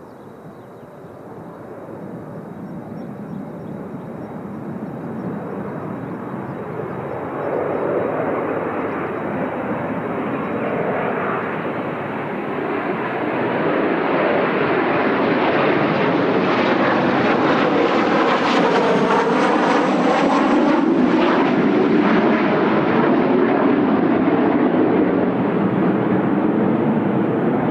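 Kawasaki T-4 jet trainers' turbofan engines approaching and passing overhead: jet noise that grows louder for about fifteen seconds, with a sweeping, phasing tone as the aircraft go over, then stays loud.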